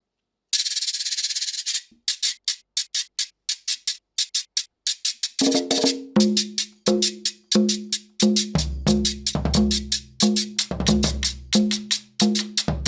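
Cumbia music: a scraped percussion roll, then a quick steady scraping rhythm; about five seconds in, short repeated accordion chords join on the off-beats, and a deep bass comes in a few seconds later.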